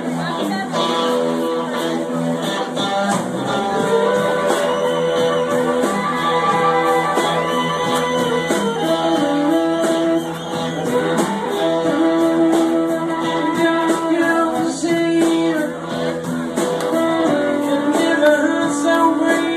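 A band playing a song, with a lead electric guitar holding long notes and bending them up and down over the accompaniment.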